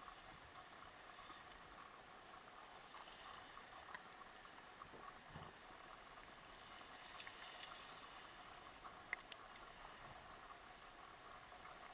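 Faint underwater ambience of shallow sea water: a low hiss with scattered small crackling ticks and one sharper click about nine seconds in.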